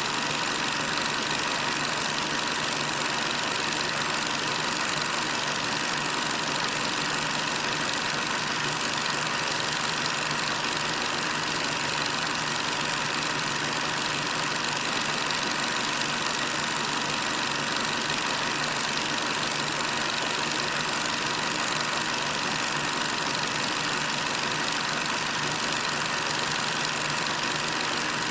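Steady engine noise of armoured vehicles driving past, heard as an even, unchanging din over the hiss of an old film soundtrack.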